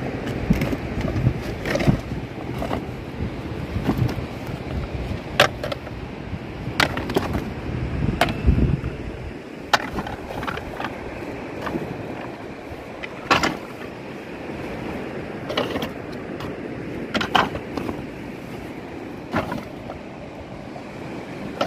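Toy tractors knocking and clattering against each other inside a woven plastic sack as it is carried and set down: scattered sharp clicks and knocks every second or two over a steady rustling of the sack.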